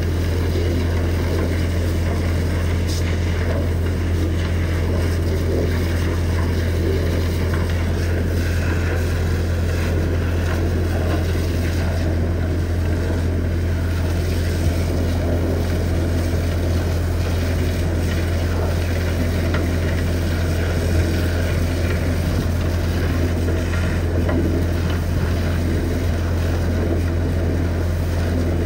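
High-pressure water jet blasting sludge off the inside of a vacuum truck's steel tank: a steady hiss and splash over the constant low drone of an engine running.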